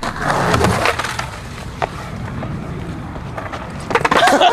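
Skateboard wheels rolling over asphalt, with scattered clicks and clacks from the board, getting louder about four seconds in.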